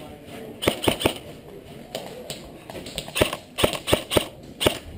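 Airsoft gunfire: sharp single shots, three about a second in, then a quicker run of about six from about three seconds in.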